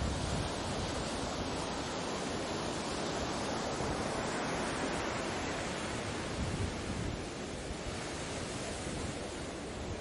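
Ocean surf: a steady, continuous wash of waves on a beach, easing slightly in the last few seconds.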